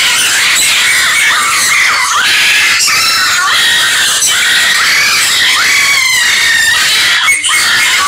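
A dense chorus of many birds screeching and squawking at once, shrill overlapping calls that keep up without a break.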